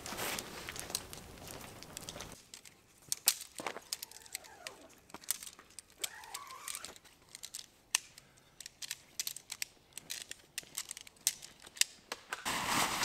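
Crinkling and rustling of handled material, with many scattered sharp clicks and knocks.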